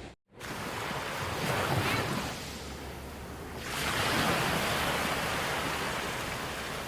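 Sea waves washing up on a sandy beach, with wind buffeting the microphone; one wave swells in about a second and a half in and a bigger one about half way through.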